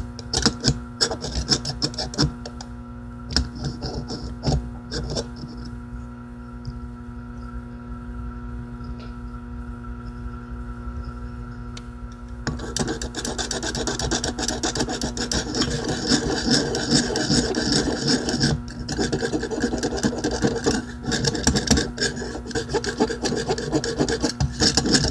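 A metal stick is scraped and ground around the inside of a metal bowl, and the bowl rings with several steady tones. The scraping grows clearly louder about halfway through.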